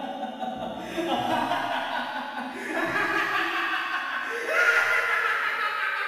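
Laughter running for several seconds, louder and higher in pitch toward the end, then cutting off.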